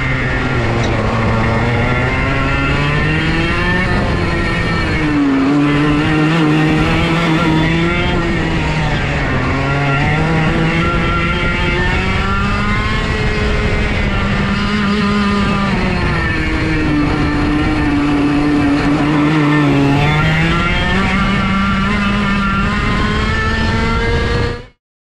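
A 30 hp racing kart's engine at full race pace, its pitch climbing on the throttle and falling away again and again as the kart accelerates and lifts for corners. The sound cuts out suddenly near the end.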